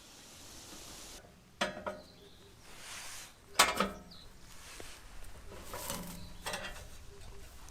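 Camp cookware or gear being handled: sharp metallic clinks with brief ringing, twice about two seconds apart and then a cluster near the end, with soft rustling between.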